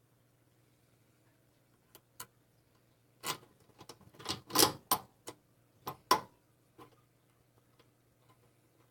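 Metal parts of an old furnace blower being handled and fitted during reassembly: two light clinks about two seconds in, then a run of louder clanks and knocks from about three to six seconds in, with a last faint tap near seven seconds.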